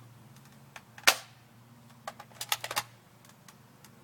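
A spring-powered M4 RIS airsoft rifle firing once with a sharp snap about a second in, followed by a quick run of clicks and rattles from the gun being handled between about two and three seconds.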